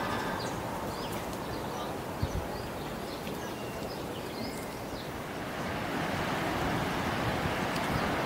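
Outdoor seaside ambience: small birds chirping over a steady wash of background noise, with the hiss of breaking surf swelling in after about five seconds.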